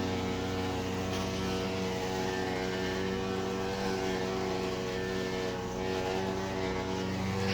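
Electrolux front-load washing machine giving off a steady mechanical hum made of several even tones, with no change in pitch or rhythm; the noise goes on while the drum does not appear to turn.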